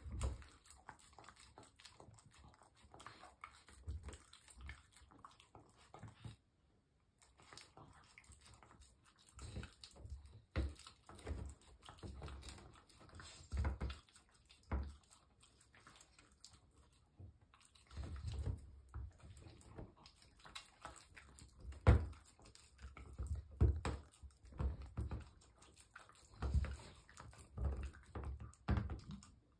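Small dog licking food off a lick mat: rapid, irregular tongue smacks and licks, growing louder and busier in the second half.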